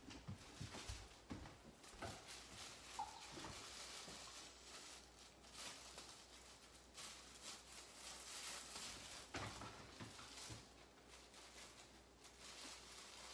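Faint rustling and light crinkling of disposable plastic gloves being pulled on, with soft scattered handling clicks.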